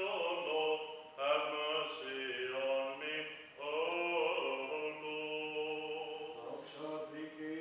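A man's voice chanting in Greek Orthodox liturgical chant, with long held notes and slow melodic turns.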